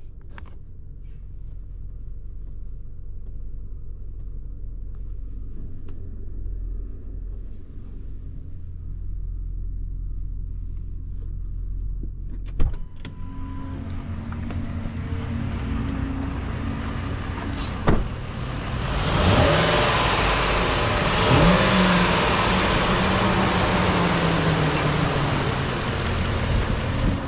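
2010 Ford F-250 pickup's engine idling, at first a steady low rumble heard from inside the cab. Two sharp knocks come about halfway through and a few seconds later. After that the idle is heard out in the open and grows louder and fuller, with some brief low pitch glides.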